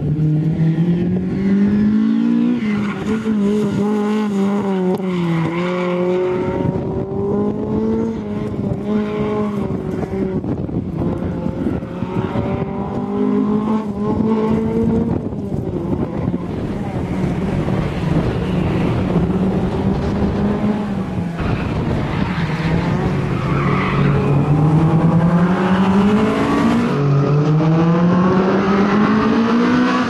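Honda Civic hatchback's engine revving hard, its pitch climbing and dropping again and again as the car is driven fast around a tight coned course.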